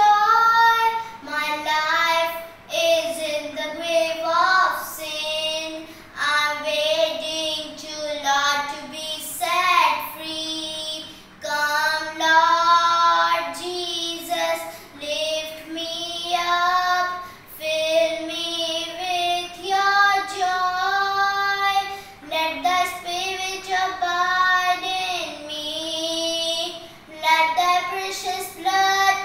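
A boy singing a devotional song solo, unaccompanied, in phrases with short breaths between them and a wavering vibrato on held notes.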